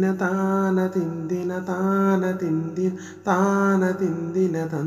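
A voice singing a Malayalam song, drawing out long held notes that bend slowly in pitch, in about three phrases with short breaks between them.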